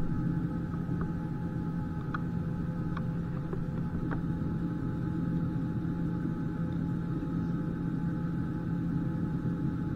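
Steady drone inside an Airbus A320 cabin, a low hum with a few fainter steady tones above it, broken by a few faint clicks in the first four seconds.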